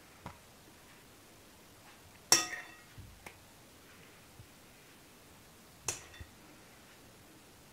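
Glass dessert cups clinking as whipped cream is spooned into them: two sharp ringing clinks, about two and a half and six seconds in, with a few fainter taps between.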